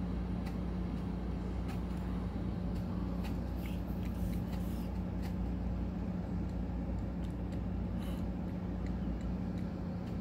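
Steady electric hum of a ceiling fan running, with scattered light clicks over it.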